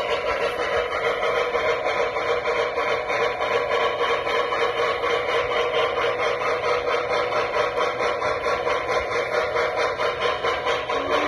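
Model steam locomotive's onboard sound system playing an even, steady rhythm of steam chuffs while the model runs along the track. A steady low tone comes in right at the end.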